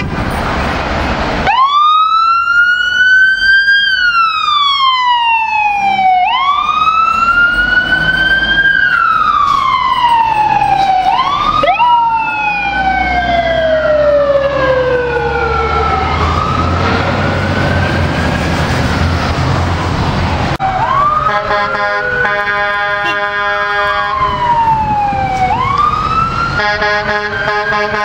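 Fire-truck mechanical Q sirens winding up and coasting down over and over, each cycle rising quickly, then slowly, and falling off over a few seconds, with diesel engines running underneath. In the last third, long steady air-horn blasts sound over the siren.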